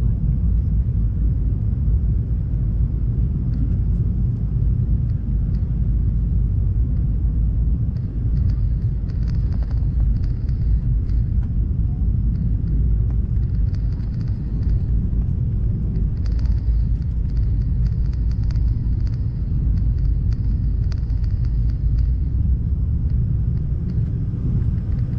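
Steady low rumble of a McDonnell Douglas MD-88's rear-mounted Pratt & Whitney JT8D engines and airflow, heard inside the cabin, with a faint high whine over it.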